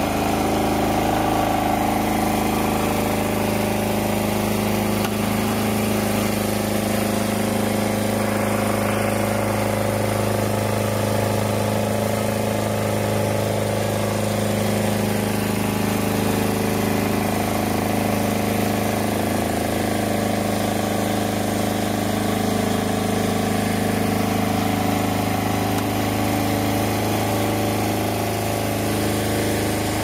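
Engine on the water cart running steadily at one even speed, a constant hum with no change in pitch.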